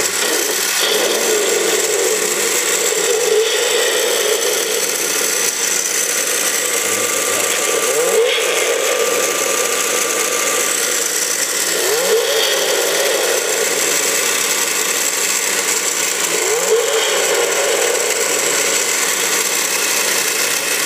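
Recorded V8 engine sound played through the small built-in speaker of a battery-powered die-cast Hemi engine model: a steady idle, revved up a few times, about every four seconds.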